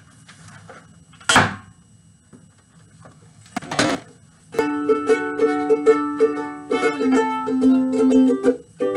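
Ukulele strummed in quick, rhythmic chords, starting about four and a half seconds in and pausing briefly near the end. Before it come two brief loud noises, about a second in and again just before four seconds.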